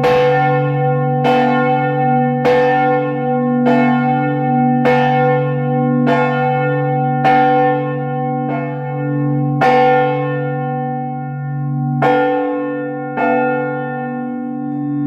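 Five swinging church bells ringing together, heard close up in the belfry: clapper strikes about every second and a quarter over a steady low hum of the bells' tones. Near the end the strikes thin out and the bells keep humming.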